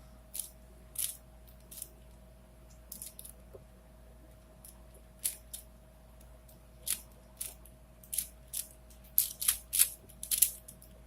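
Plastic 4x4x4 Rubik's cube (Rubik's Revenge) being turned by hand: irregular clicks of the layers turning, a few at a time at first and coming in quicker runs near the end.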